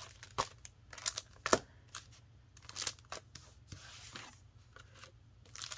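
Paper inserts and plastic packaging being handled and shuffled on a table: scattered rustles and light taps, the loudest about a second and a half in.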